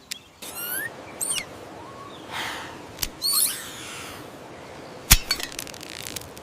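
Bird-like chirps over a steady outdoor hiss, with sharp cracks about three and five seconds in, the second the loudest and followed by a quick run of smaller clicks.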